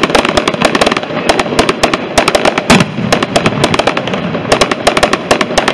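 Mascletà fireworks: a rapid, irregular barrage of loud firecracker bangs, several a second, coming in clusters.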